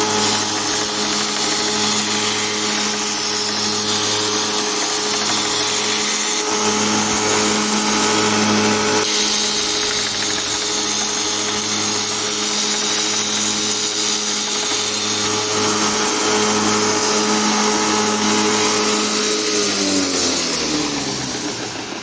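2 HP VFD-driven 2x72" belt grinder running an 80-grit belt while an aluminium plate is ground against it: a steady motor hum under a hiss that shifts as the metal is worked, with a regular hammering knock each time a spot more than half a millimetre out hits the part. Near the end the motor winds down, its hum falling in pitch.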